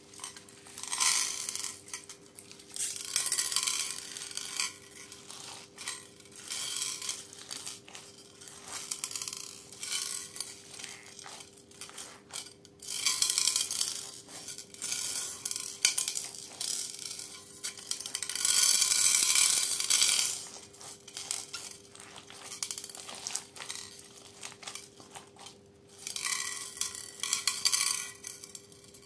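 Slime packed with foam and plastic beads being squeezed, pressed and stretched by hand, giving irregular bursts of crackling and squishing, with beads clicking against a glass dish. One longer crackling stretch comes about two-thirds through.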